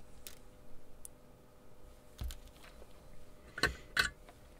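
A few small clicks and knocks as a circuit board with its metal front panel is handled and turned in a plastic PCB holder; the two loudest come close together near the end.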